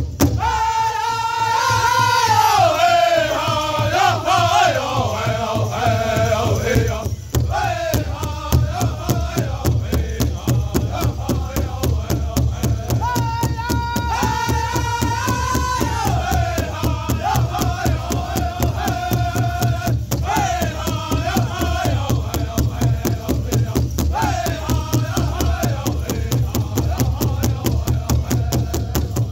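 Powwow drum group singing together over a large hide-covered drum struck by several drummers in a steady, fast beat. The high sung phrases start high and fall in pitch, with a new phrase rising again about halfway through.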